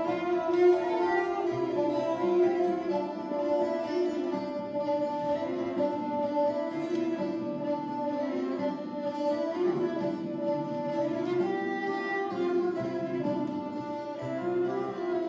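Early-music ensemble playing Renaissance courtly dance music live: a plucked lute and a bowed viella, with a flute, playing sustained notes and a moving melody.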